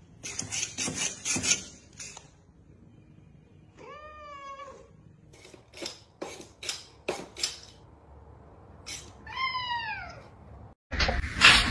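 Domestic cat meowing twice: one call about four seconds in, and a longer call falling in pitch near the end. Short sharp clicks come before and between the two calls.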